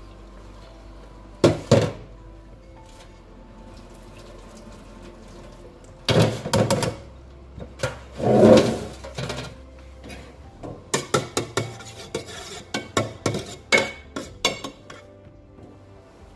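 A steel cooking pot and a mesh strainer knocking and clinking against a stainless steel sink while drained rice is handled. There is a single knock about a second and a half in and a cluster of clattering around six to nine seconds. From about eleven to fifteen seconds comes a run of quick, sharp metal clinks.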